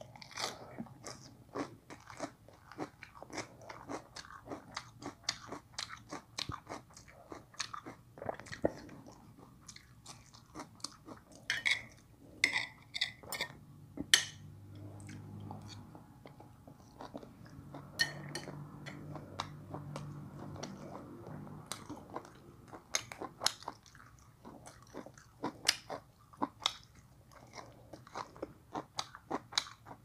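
A person chewing and crunching crisp raw lettuce and herb leaves, a continuous run of small sharp crunches.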